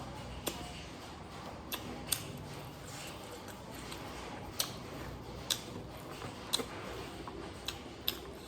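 Close-miked eating: chewing with sharp mouth clicks and smacks at irregular intervals, about eight in all, over a low steady background.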